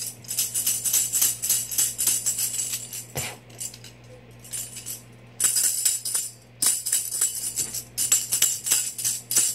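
Small handheld tambourine shaken in bursts, its metal jingles rattling, with a quieter pause from about three to five seconds in. A single soft thud comes about three seconds in.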